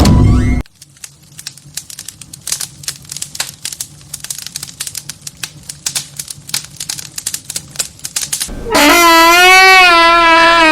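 Sound effects in sequence: a long run of rapid, irregular clicks like typing, over a faint low hum. Near the end, a loud horn-like blast cuts in; it wavers in pitch and bends downward as it fades.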